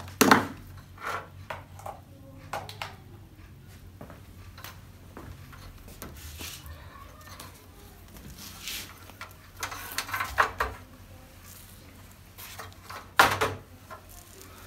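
Handling sounds from work on the opened TV: scattered clicks and taps with some rubbing, and sharper knocks about a quarter second in, around ten seconds in and about thirteen seconds in.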